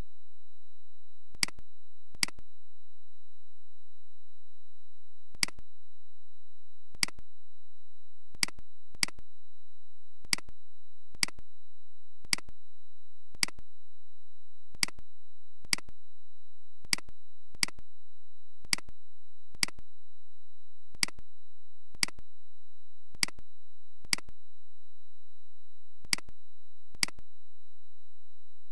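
Computer mouse clicking about twenty times at uneven intervals, often in quick pairs, over a steady high-pitched tone.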